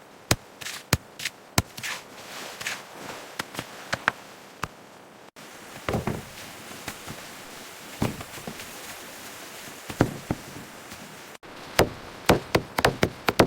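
Wooden knocks and taps of timber being worked, coming irregularly at first and then as a quick run of sharp knocks near the end.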